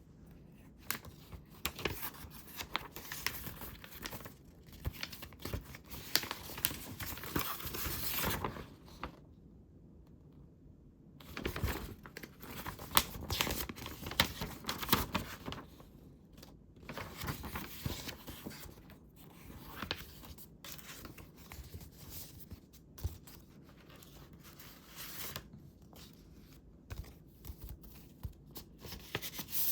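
Paper crafting up close: sheets of paper rustling and being torn, with sharp clicks and taps from handling the paper and tools. There is a pause of about two seconds roughly nine seconds in.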